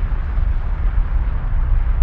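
A steady, loud rumble with a hiss above it.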